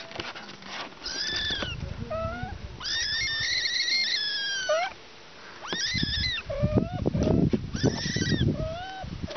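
Kitten meowing: a string of high, rising-and-falling meows, the longest about three seconds in, with low rustling around the calls.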